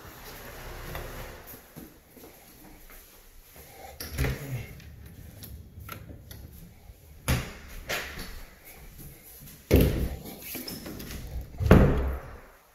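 A handful of sharp knocks and bumps, about five of them, with the two loudest near the end.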